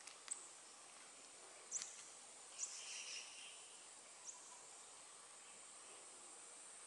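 Faint outdoor ambience: a steady high-pitched insect hum, with four short, sharp high chirps scattered through the first few seconds.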